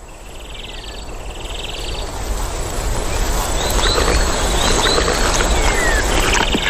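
Birds calling, with short whistled glides and buzzy trills, over a rustling noisy haze that grows steadily louder, with a few sharp clicks near the end.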